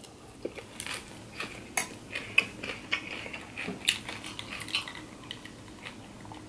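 Close-miked chewing of a mouthful of crunchy shredded cabbage and kale salad, a run of short crisp crunches. About four seconds in, ice clinks in a glass of water as it is lifted and sipped.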